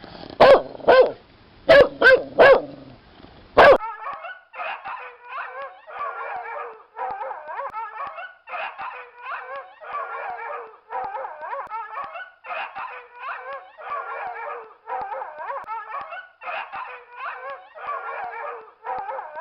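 A dog barks sharply about six times. It then keeps up a steady run of short, high, wavering yelps, about one and a half to two a second, until it stops near the end.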